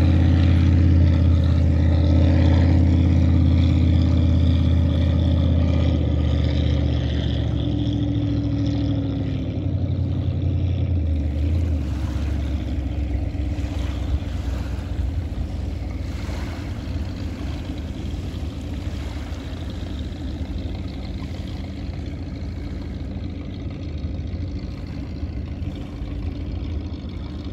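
Motorboat engine running at speed across the lake, a steady low drone with a hum, loud at first and fading over roughly the first ten seconds as the boat moves off, leaving a lower steady rush.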